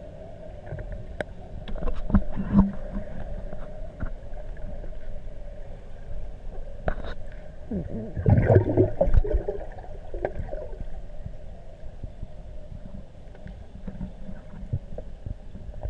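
Muffled underwater sound in a swimming pool, picked up by an action camera in its waterproof housing: a steady hum with scattered clicks and knocks, and a louder stretch of gurgling about eight seconds in.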